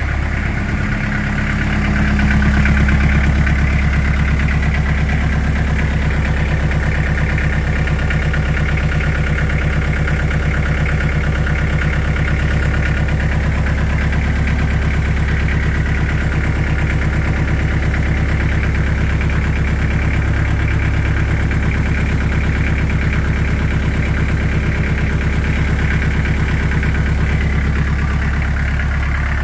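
Daedong 35-horsepower tractor's diesel engine idling steadily, picking up slightly about two seconds in.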